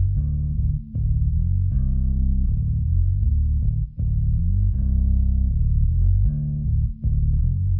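Background music led by bass guitar and guitar, low-pitched and steady, with brief breaks about every three seconds.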